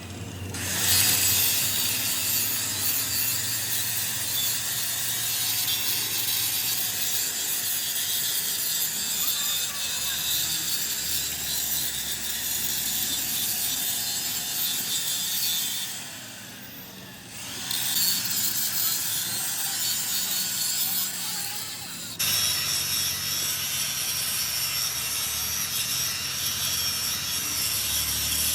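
Steady, harsh scraping of metal being worked on a truck wheel hub, as in grinding, filing or sawing. It breaks off briefly about sixteen seconds in and changes abruptly about twenty-two seconds in.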